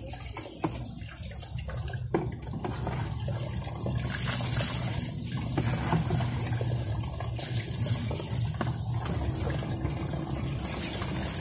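Water pouring from a garden hose into a basin, with splashing as a man bathes by pouring water over himself.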